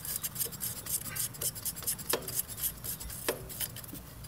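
Light metallic clicks and scraping as loosened nuts are turned off by hand at the friction drive wheel hub of a Snapper rear-engine mower, with two sharper clicks about two and three seconds in.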